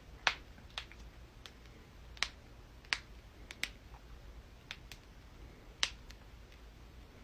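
A person's joints cracking: about ten sharp, separate pops at irregular intervals, some louder than others.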